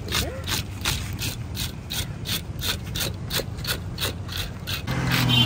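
Hand fish scaler scraping the scales off a large grouper in rapid, even strokes, about four a second. Near the end a low hum comes in under the scraping.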